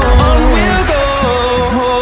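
Background music: a sung melody held over sustained synth notes and a steady bass.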